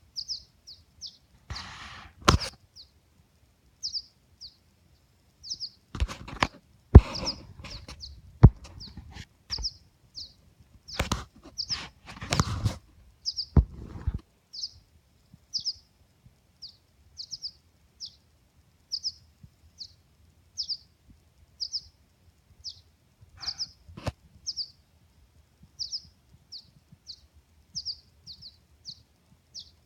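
Baby birds cheeping: a steady run of short, high chirps, about one or two a second. Several loud knocks come in among them, mostly in the first half and once more near the end.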